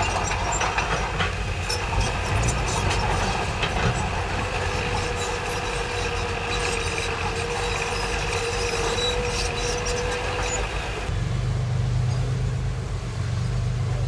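Diesel engine of heavy earthmoving machinery running, with frequent metallic clanks and rattles; a steady whining tone rises above it for several seconds. About eleven seconds in, the sound changes abruptly to a deeper, steadier engine drone.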